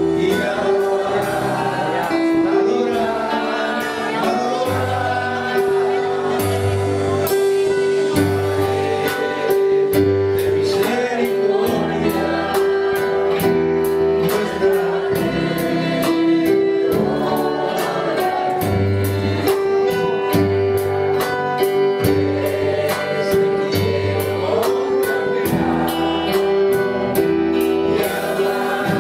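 Live gospel worship music: voices singing together over an electric guitar, a repeating bass line and steady percussion.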